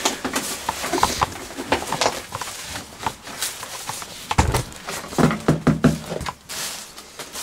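Rubber-gloved hands stirring a dry fertilizer meal of rice bran and bone meal inside a black plastic bin bag, with more meal poured in from a container: the bag crinkles and the dry meal rustles in an uneven run of scratchy crackles.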